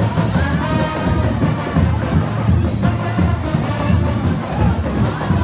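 Loud live music with a steady drum beat and a melody carried over it.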